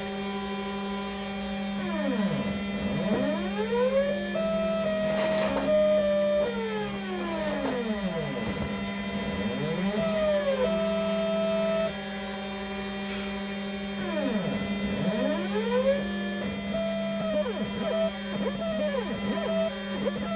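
Stepper motors of a DIY CNC milling machine whining as the axes move, their pitch sweeping up and down in repeated arcs and holding steady for stretches, over a steady hum.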